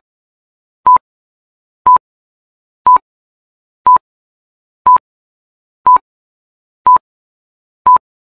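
Countdown timer beep sound effect: short, identical single-pitched beeps, one each second, with silence between them, ticking off the seconds.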